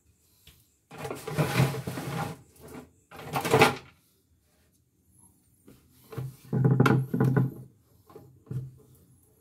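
Hands handling a plastic portable embroidery machine: two bursts of rustling and scraping in the first few seconds, then a cluster of heavier knocks and rubbing later on.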